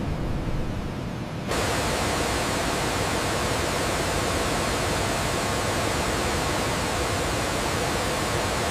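Turbofan jet engine running on a test stand, a steady rushing noise with no beat. About a second and a half in, the sound changes abruptly from a duller, low-heavy rush to a brighter, even hiss.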